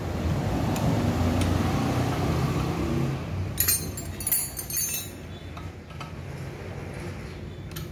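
Metal spanner clinking and scraping against the fuel-injector fittings of a Dongfeng R175 diesel engine, a quick cluster of sharp clinks about halfway through. A steady low hum runs underneath for the first few seconds.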